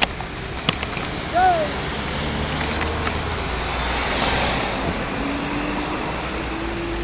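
Road traffic at a busy junction heard while riding a bicycle: steady road noise with a vehicle engine slowly rising in pitch in the second half. A few light clicks and a brief squeak sound about a second and a half in.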